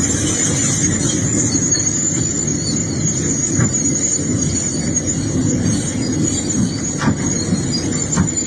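Excavator running under load: a steady low engine rumble with a high-pitched whine held over it, and a few faint knocks.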